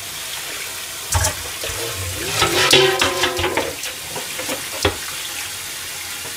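Kitchen tap running into a stainless steel sink as a pot is rinsed under the stream, water spattering off the metal, with a few clunks of the pot against the sink.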